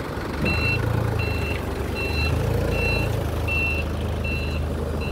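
Truck reversing alarm beeping: a high beep about every three-quarters of a second, starting about half a second in, over the truck's diesel engine running.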